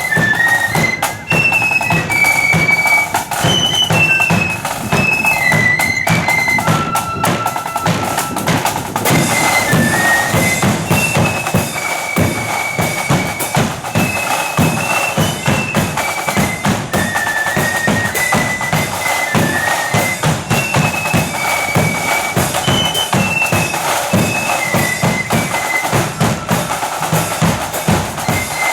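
Marching flute band playing a tune: a high flute melody carried over a steady march beat of bass drum and snare drums.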